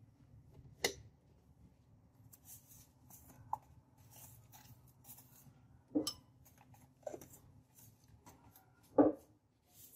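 Kitchen handling noises: a few separate light knocks and clinks of a bottle and dishes being moved and set down, the loudest about nine seconds in, with soft rustling between.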